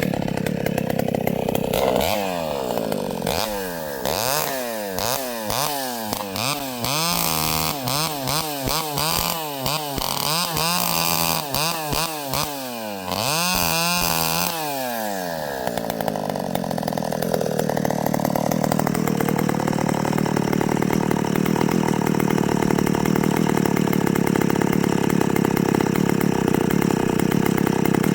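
Vintage Pioneer chainsaw engine revving up and down over and over, then running steadily at high speed for the rest of the time.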